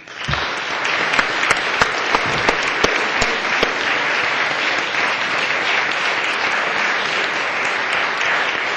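Audience applauding, starting abruptly and holding steady, with a few louder individual claps standing out in the first few seconds.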